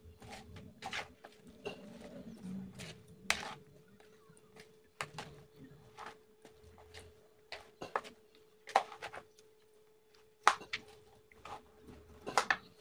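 Bare hands mixing salted fish and sliced spices in a bowl: scattered light clicks and knocks as fingers and food hit the bowl, over a faint steady hum.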